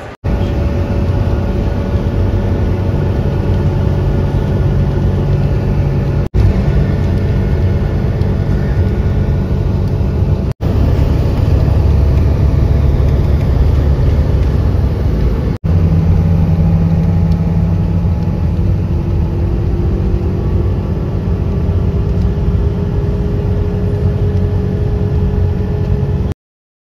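Jet airliner passing low overhead: a loud, steady engine rumble with a few held tones, one of them slowly rising in the later part. The sound is broken by three brief drop-outs and cuts off suddenly near the end.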